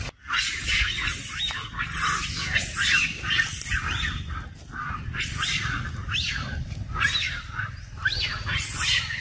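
A troop of long-tailed macaques squeaking and chirping: many short, high calls, a lot of them quickly rising in pitch, overlapping one after another, over a steady low rumble.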